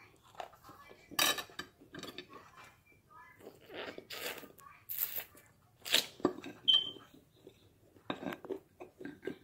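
Dry clay pieces bitten and crunched between the teeth: a series of sharp, irregularly spaced crunches and snaps, loudest about a second in and about six seconds in.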